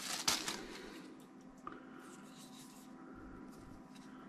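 Faint handling noise: the last rustle of a plastic wrapper being tossed aside, then a few light clicks and rubs as a metal condenser microphone is turned over in the hands, over a faint steady hum.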